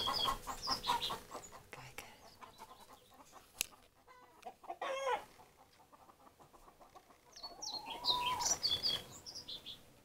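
Backyard chickens clucking in quick pulses with small birds chirping over them, dying away after about a second and a half. A single click comes a little after three seconds. A short call follows about five seconds in, then a longer drawn-out chicken call with more bird chirps near the end.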